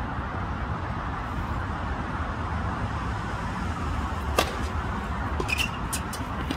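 Tennis racket striking the ball on a serve: one sharp, loud pop about four seconds in, over a steady background hiss. A few lighter clicks follow near the end.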